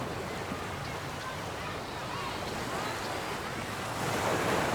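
Beach ambience: ocean surf washing steadily, one wave building to a louder wash near the end, with faint voices in the background.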